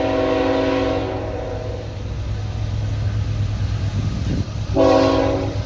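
Norfolk Southern diesel locomotive sounding its multi-note air horn: a long chord that cuts off about a second in, then a short blast near the end, over the low rumble of the approaching freight train.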